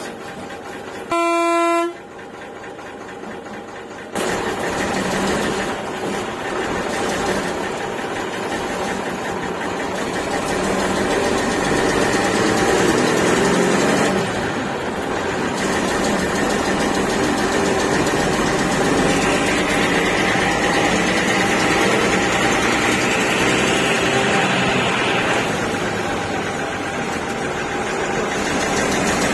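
A bus horn gives one short pitched blast about a second in. After that the bus's engine and road noise run loud and steady, stepping up in level about four seconds in.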